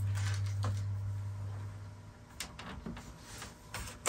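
Plastic iMac G3 bezel being shimmied onto the CRT chassis by hand: scattered light clicks, knocks and scrapes of plastic on plastic. A low steady hum fades away over the first two seconds.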